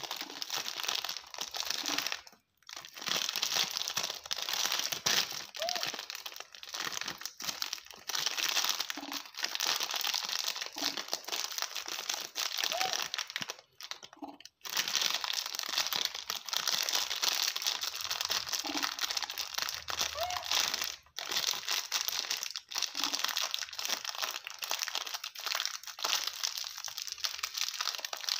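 Crinkly plastic snack packet rustling and crackling as a baby monkey's hands dig into it, with a couple of brief pauses.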